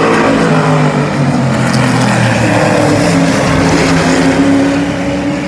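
Several super truck race engines running hard around the oval, their overlapping engine notes rising and falling as the trucks race past.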